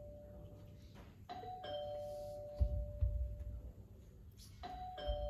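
Two-tone ding-dong doorbell chime rung twice, about a second in and again near the end, each time a higher note dropping to a lower note that rings on. A couple of low thuds come between the two rings.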